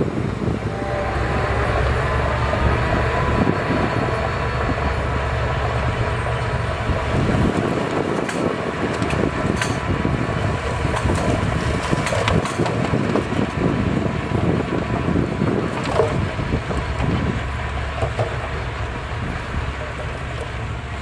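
Heavy diesel earthmoving machinery running steadily under load, with a few sharp metal clanks.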